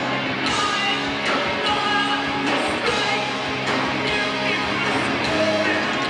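Live rock band playing: electric guitars and drums in a loud, steady full-band mix.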